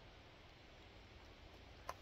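Near silence, with one short click near the end.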